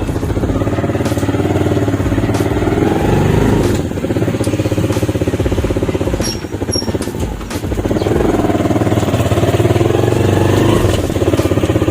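Motorcycle engine running under way, its pitch rising as it speeds up about two seconds in and again near the end, easing off in between.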